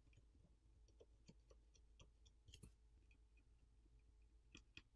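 Near silence, with a few faint, scattered clicks of a thin metal tool touching a phone's metal midframe.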